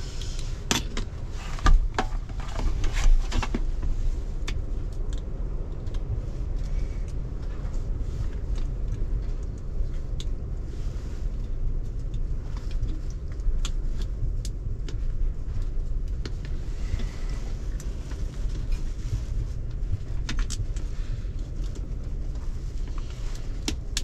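Scattered small clicks and knocks of hands and tools working screws, nuts and a bolt at a tractor joystick, over a steady low rumble. The clicks come thickest in the first few seconds, then sparser.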